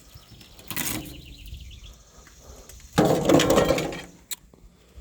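An old taped-shut metal shortening can being opened: a short scraping rustle about a second in, then a longer, louder one about three seconds in, and a sharp click a second later.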